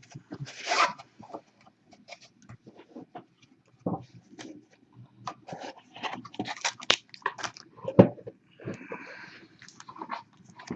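Trading-card boxes being handled and opened: irregular crinkling and clicking, with a sharp knock about eight seconds in followed by a short rustle.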